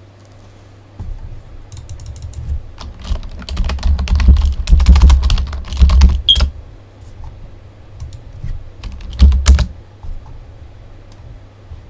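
Handling noise of a plastic action figure being moved and posed close to the microphone: many quick clicks and knocks with low thuds, thickest in the middle and again in a short burst near the end.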